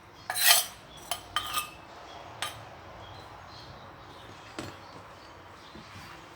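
Utensils scraping and clinking against a bowl as a salad is mixed: one longer scrape about half a second in, then a few sparse single clinks.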